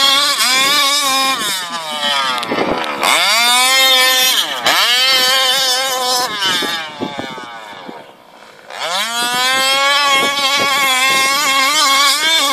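Rovan 29cc two-stroke engine of an HPI Baja 5B RC buggy revving up and backing off several times in quick succession, with a short drop to a low level about eight seconds in before it winds up again.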